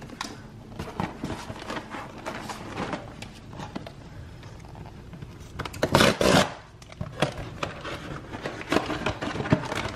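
Frozen-food packaging being handled on a kitchen counter: light rustling, scraping and tapping of a cardboard box and plastic bag, with a louder rustle about six seconds in.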